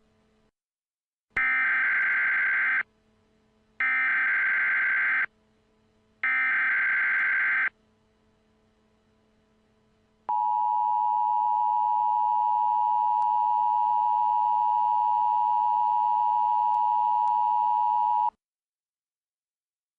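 Emergency Alert System activation: three buzzing bursts of digital header data, each about a second and a half long with short gaps between, then after a pause the two-tone attention signal, a steady dual-pitch tone held for about eight seconds before it cuts off.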